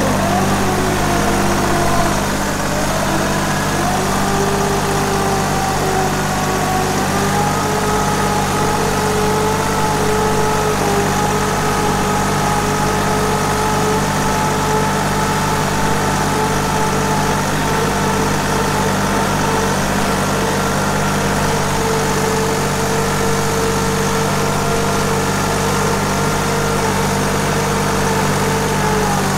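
Compact tractor's engine running steadily as the tractor drives slowly. A whine rides above it and wavers a little in pitch.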